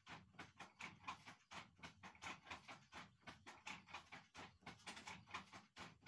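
A hawk chick chirping faintly in a fast, even series of short calls, about five a second: a nestling's food-begging calls while being hand-fed.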